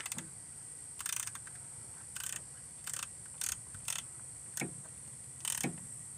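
Hand ratchet with a deep-well socket clicking in short strokes, about seven bursts roughly half a second to a second apart, as an ignition coil hold-down bolt is tightened down.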